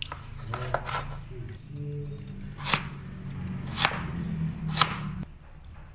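Steel cleaver chopping peeled sweet potato on a plastic cutting board: light chops near the start, then three sharp chops about a second apart.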